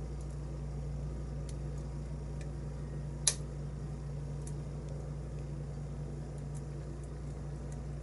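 Faint, scattered clicks of a lock pick working the pins of a brass challenge lock cylinder, with one sharper click about three seconds in, over a steady low hum.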